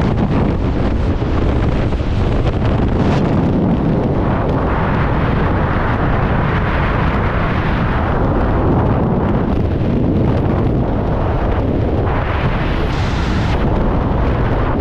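Freefall wind rushing past a skydiving camera's microphone: a loud, steady buffeting roar, heaviest in the low end, with a brief hissier patch near the end.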